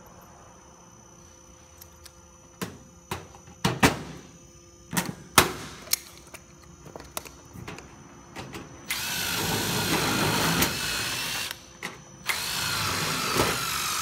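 Cordless drill driving screws through sheet-metal flat ridge capping on a corrugated roof, in two runs of about two and a half seconds each. Before them come several sharp clicks and knocks.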